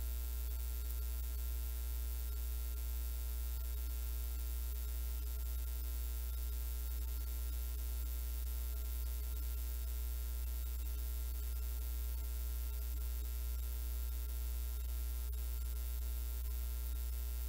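Steady electrical mains hum with a buzz of overtones, unchanging throughout, and no other distinct sound.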